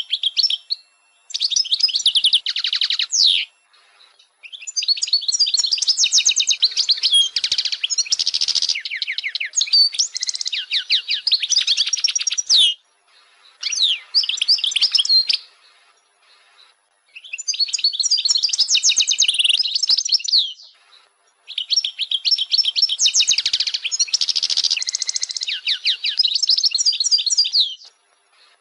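European goldfinch singing: bouts of rapid twittering and trilled notes, high-pitched, broken by short pauses.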